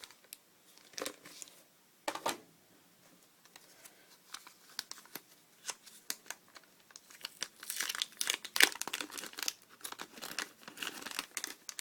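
Packaging being handled: a few separate rustles, then a busier stretch of crinkling and crackling in the second half.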